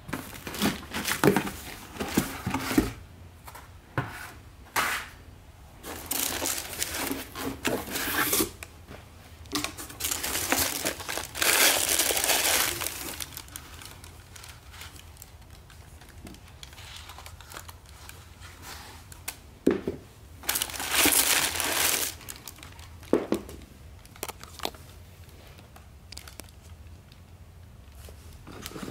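Packaging being handled while a shoe box is opened and shoes lifted out: irregular bursts of crinkling and rustling wrapping, busiest in the first half, with a quieter stretch and then one more burst about two-thirds of the way through.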